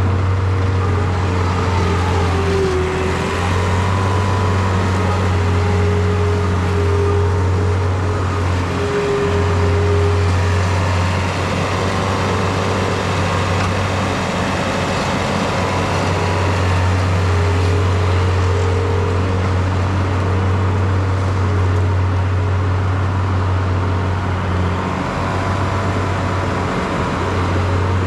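Diesel engine of a farm machine running steadily under load, a constant low drone with a higher tone that wavers above it, dipping briefly a few times.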